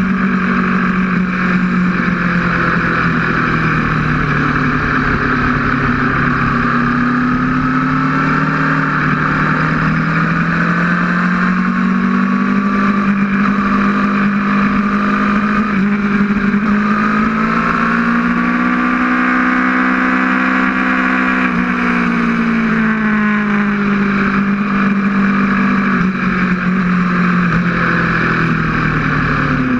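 Aprilia RSV4's V4 engine running hard at speed, its pitch rising and falling slowly as the throttle is rolled on and off through the corners, over a steady rush of wind.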